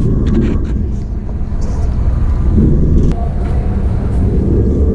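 Lifeboat tender's diesel engine running steadily, a loud low rumble heard from inside the boat, with a few light knocks on top.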